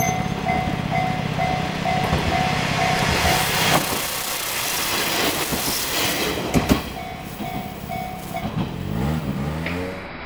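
JR Kyushu Kiha 47/140 'Hayato no Kaze' diesel railcar passing, its engine running loudly for the first few seconds, then a few sharp clacks from the wheels on the track as it goes by. A repeating ding, about two a second, sounds alongside in the first third and again briefly later.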